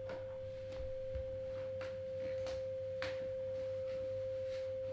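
A steady pure tone of about 525 Hz played through a small Bluetooth speaker, starting right at the outset and holding one unchanging pitch.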